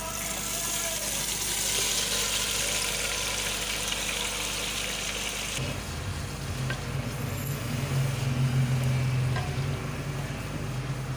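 Marinated chicken going into hot oil and fried onions in a clay handi, sizzling with a strong hiss that drops off sharply after about five and a half seconds. Then the chicken is stirred with a spoon over a quieter sizzle, and a low steady hum comes in at the same point.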